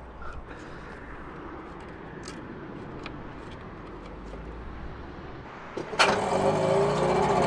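A few faint clicks over quiet, then about six seconds in the boat's small outboard engine comes in abruptly and runs steadily and loud.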